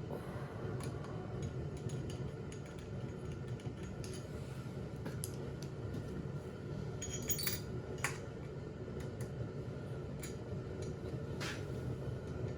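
Small metal parts and tools clinking and clicking now and then during hand assembly of a chainsaw's cylinder, the sharpest clinks about seven to eight seconds in, over a steady low hum.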